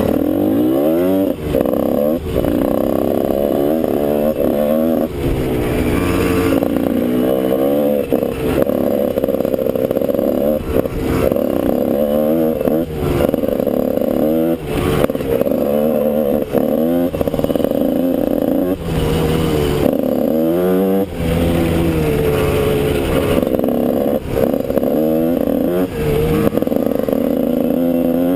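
Dirt bike engine heard close up from on board, revving up in repeated rising sweeps and dropping back every few seconds as the rider accelerates and backs off the throttle through the corners.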